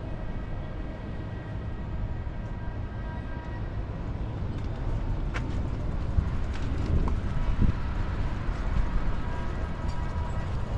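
City street ambience: a steady low rumble of distant road traffic, with a couple of light clicks about five seconds in.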